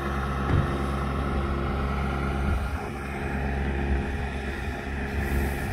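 Engine of small construction equipment running steadily, a low drone that holds one pitch.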